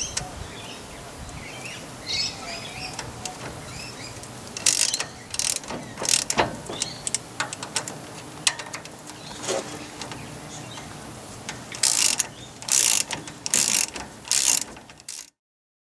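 Hand ratchet wrench clicking in short bursts, the sound of bolts being run in or tightened during reassembly. There are faint bird chirps about two seconds in, and the sound cuts off abruptly near the end.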